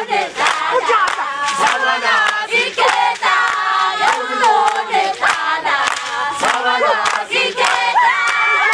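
A group of voices chanting and shouting together in chorus, with sharp percussive beats throughout.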